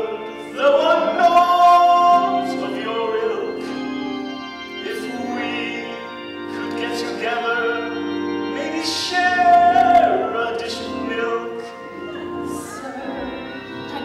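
Musical theatre song: a woman singing a melody with several long held notes over instrumental accompaniment.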